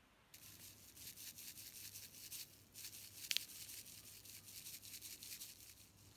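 Faint scratchy rustle of granular candle wax beads being poured from a packet into a glass jar, with one sharp click about three seconds in.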